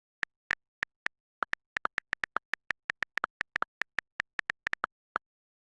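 A quick, irregular series of short, sharp clicks, about two dozen in five seconds, bunched closest together in the middle, with dead silence between them.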